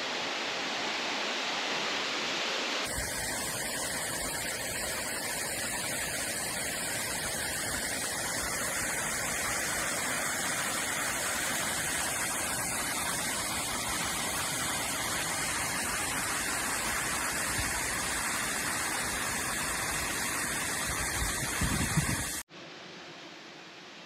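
Steady rushing of a small waterfall cascading down a rock chute. It gets suddenly fuller about three seconds in and drops abruptly to a fainter hiss near the end.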